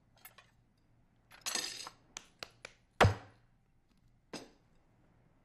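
A salt shaker handled on a tabletop: light clicks and clinks, a short scraping rattle about one and a half seconds in, and a hard knock against the table about three seconds in, the loudest sound, followed by one more click.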